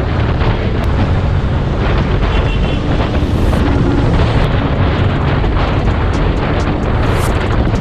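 Heavy wind rumble on the microphone of a camera mounted on a moving motorcycle at road speed, steady throughout, with the motorcycle's engine running underneath.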